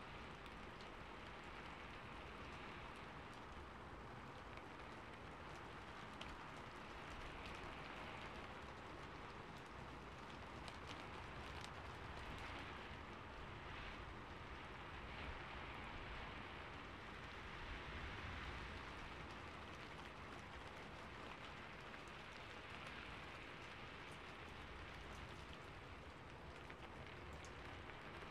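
Steady rain: a soft, even hiss with scattered light drop ticks.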